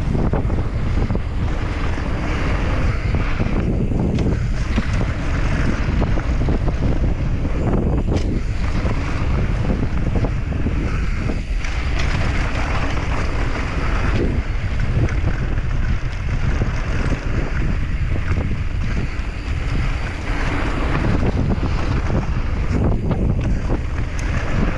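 Wind buffeting the microphone of a camera on a mountain bike riding downhill, a constant low rumble, with the hiss and rattle of tyres over loose dirt and gravel rising and falling underneath.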